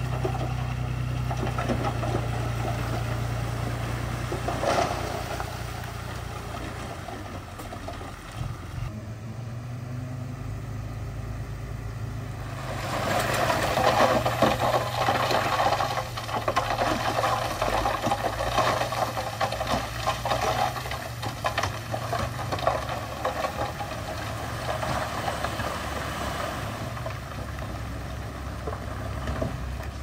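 Diesel engine of a Komatsu D51PX crawler bulldozer running steadily, with clanking and rattling from its tracks and the stone and debris being pushed. The clatter grows louder and busier a little under halfway through.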